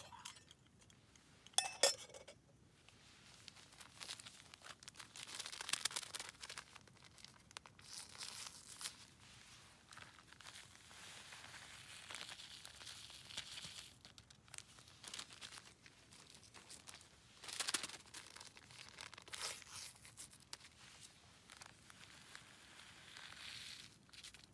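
Crinkly material being handled close by: irregular crinkling and rustling that comes and goes in patches, with a couple of sharp clicks about two seconds in.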